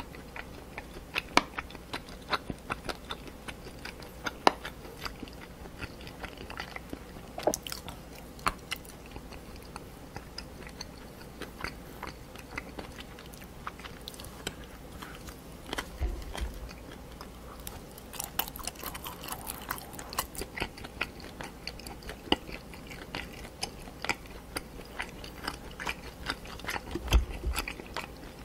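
Close-miked chewing of spicy pork cartilage and chicken feet: a continuous, irregular run of small sharp crunches and clicks as the cartilage is bitten through.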